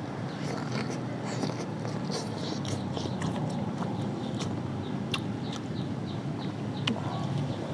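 Close-up chewing and eating sounds: irregular sharp wet mouth clicks and smacks over a steady low hum.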